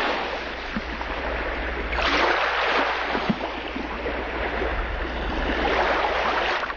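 Rushing, splashing water, a steady noise that swells and eases a few times.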